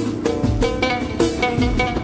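Middle Atlas Amazigh folk music in an instrumental passage: a lotar (plucked lute) plays a run of plucked notes over a drum beat.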